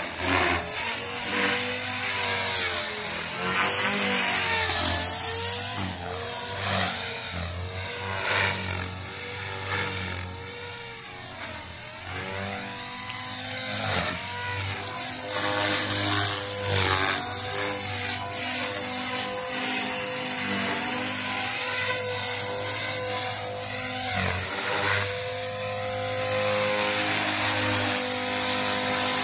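Electric Blade 450X RC helicopter flying aerobatics: a continuous rotor buzz with a high motor whine that bends up and down in pitch and loudness as it maneuvers. It grows fainter around the middle and louder again near the end as it comes back close.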